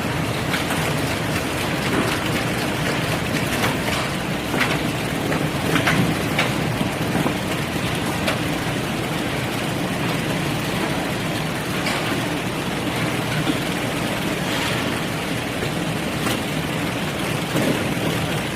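Mechanized tangerine sorting line running: steady machine noise with scattered light knocks.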